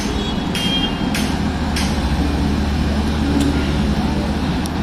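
Heavy diesel construction machinery, the excavator and concrete mixer trucks, running with a steady low rumble, broken by a few short sharp clicks.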